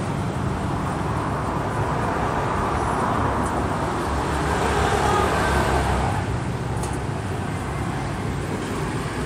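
Steady road traffic noise from passing motor vehicles: a constant rumble and hiss that swells slightly about five seconds in, with a couple of faint ticks.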